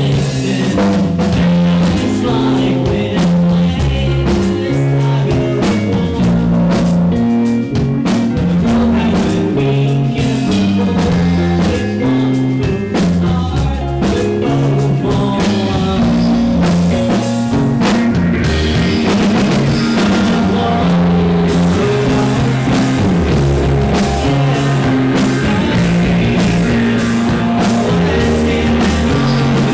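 A live rock band playing: distorted electric guitar, electric bass and drum kit, with a male lead vocal sung over them.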